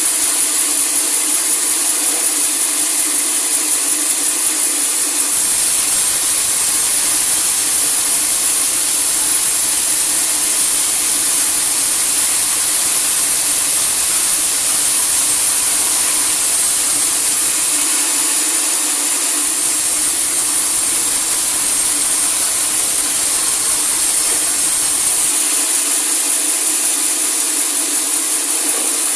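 Sawmill saw cutting through a large teak log: a loud, steady hiss of the blade in the wood over the running machinery, with a lower rumble that comes in about five seconds in, drops out briefly, and stops a few seconds before the end.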